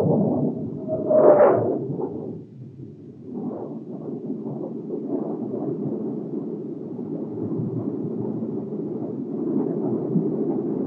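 Low, steady rushing roar of a jet aircraft, loudest about a second in, where a short whine rises above it.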